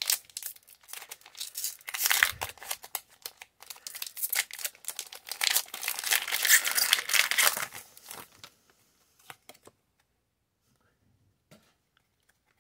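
Foil Pokémon trading card booster pack wrapper being torn open and crumpled, a dense crinkling and crackling for about eight seconds, then only a few faint clicks.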